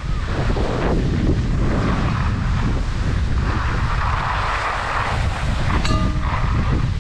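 Wind buffeting the microphone of a moving skier, a heavy low rumble, with the hiss of skis scraping over snow swelling and fading. A brief high-pitched note sounds just before the end.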